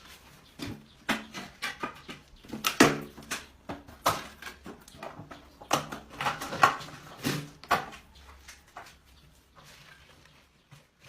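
A rat in a kitchen making a rapid series of short, sharp coughing sounds in irregular clusters, dying away near the end.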